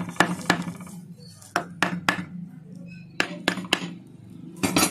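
Sharp metallic knocks and clinks in quick groups of about three, as a motorcycle cylinder block is tapped and pressed down over its studs and dowels onto the crankcase.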